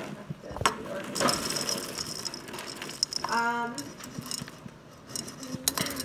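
Clear plastic food container with a snap-on lid being gripped and worked by hand: scattered clicks and knocks of the plastic, with one short pitched sound about halfway through.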